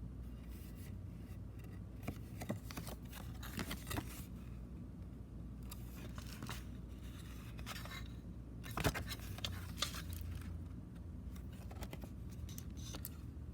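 Cassette tape packaging being handled and unwrapped: plastic crinkling and scraping with scattered sharp clicks, the loudest about nine seconds in, over a steady low hum.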